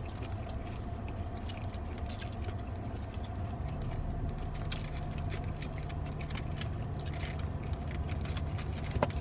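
Steady low hum of a running car, heard inside the cabin, growing slightly stronger about three and a half seconds in, with faint intermittent chewing and crunching of fried chicken over it.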